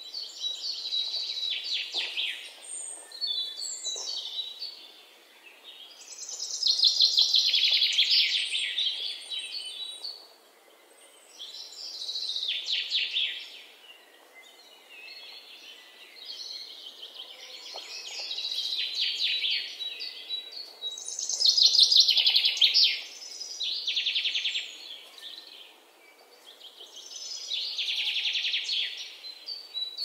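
Magpies chattering: harsh, rapid rattling calls in bursts of one to three seconds, repeated every few seconds.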